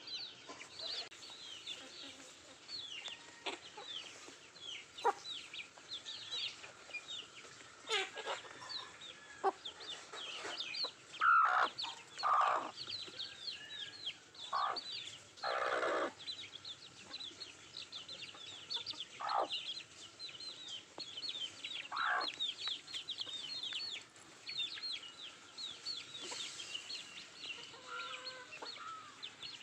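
Nattu kozhi (country chickens) clucking while they feed, over a constant stream of rapid, high, falling cheeps. A handful of louder calls come in the middle.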